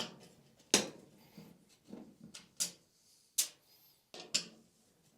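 Sharp metallic clicks and knocks, about six or seven spaced irregularly, from screws and tools being worked against a clothes dryer's sheet-metal panel during disassembly.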